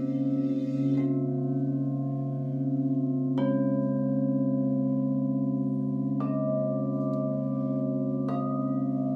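Clear crystal singing bowls ringing in several steady, overlapping tones. A bowl is struck four times, each strike adding a fresh ringing tone over the sustained hum.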